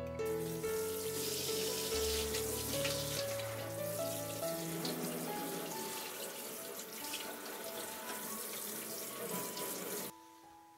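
Tap water spraying into a kitchen sink over an amplifier's circuit board and metal chassis, rinsing off dish-soap suds; the water cuts off suddenly near the end. Background music plays throughout.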